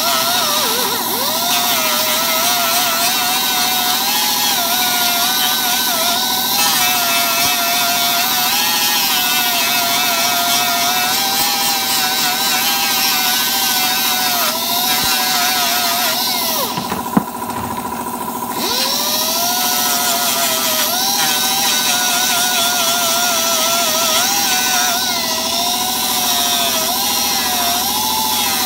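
Electric grinder grinding down a welded plastic seam on a motorcycle side cover. Its whine wavers and sags in pitch as it is pressed into the plastic. A little past the middle the grinding briefly eases off with a single click, then picks up again.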